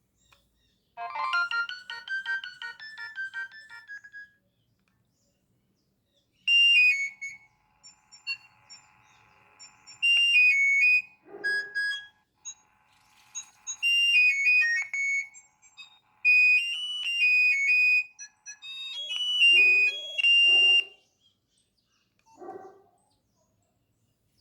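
Nokia 6560 mobile phone playing its ringtones. First comes a short run of quick electronic notes stepping downward. After a pause of a couple of seconds, a longer electronic melody of quick high notes plays for about fifteen seconds.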